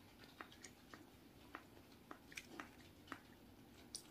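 Quiet eating sounds: faint, scattered clicks and crackles as fingers tear at a crusty-topped bun and the mouth chews, about a dozen soft ticks over a still room.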